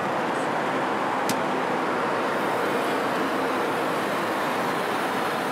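Steady cabin noise of a small private jet in flight, with a single click a little over a second in.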